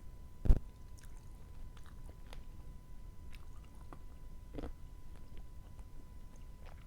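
Close-miked chewing and mouth sounds of someone eating, with scattered small clicks and a loud low thump about half a second in.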